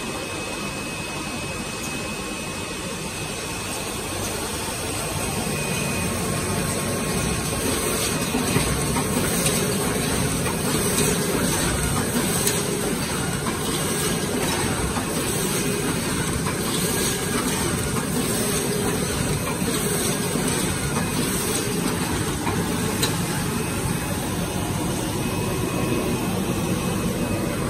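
Facial tissue bundling machine and its conveyors running: a steady mechanical din with light clicks here and there, growing a little louder after about five seconds.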